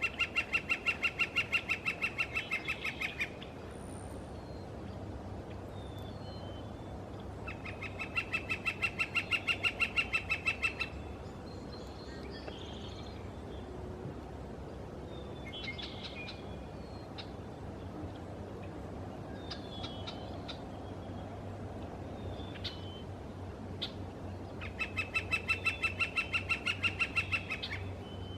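Red-shafted northern flicker giving its long call, a rapid, even series of repeated notes lasting about three seconds, delivered three times. Fainter chirps from other birds fill the gaps between the series.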